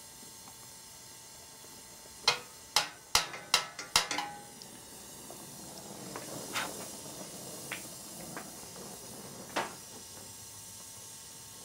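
Gas torch hissing steadily as it heats brazed copper tube joints on a refrigeration coil. About two seconds in there is a quick run of about six sharp metallic knocks, then a few lighter clicks.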